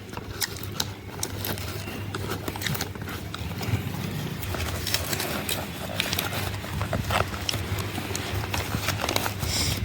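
Popcorn popping in a running microwave oven: irregular sharp pops and clicks at uneven intervals over the oven's steady low hum.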